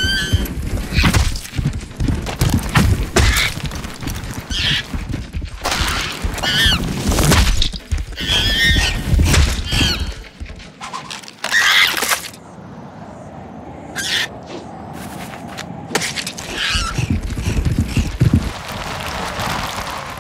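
Cartoon sound effects: monkey shrieks and cries among repeated crashes, smashes and impacts over music, with a quieter lull about two thirds of the way through.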